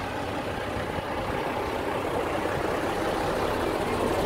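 Diesel engine of a vintage ERF articulated lorry running steadily as it drives slowly past, growing a little louder toward the end.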